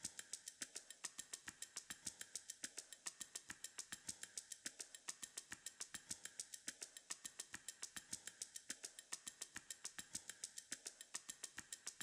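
Quiet background music: a looping electronic beat of fast ticking clicks, about six a second, its pattern repeating every two seconds.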